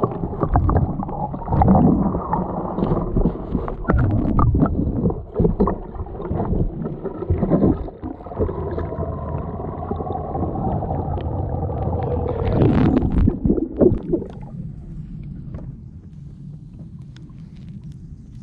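Kayak being paddled: water splashing and sloshing against the boat, with frequent knocks and muffled rumble. It drops to a quieter low rumble about fourteen seconds in.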